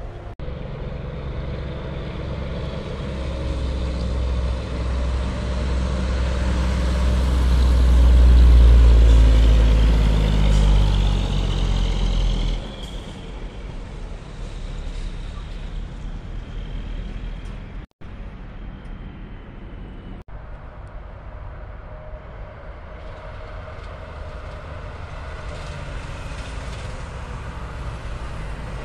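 Semi-trucks passing on the road. A close truck's diesel engine builds to a loud peak about eight seconds in, its pitch sliding up and down, then drops away abruptly about twelve seconds in. After that comes quieter engine and road noise from more trucks going by.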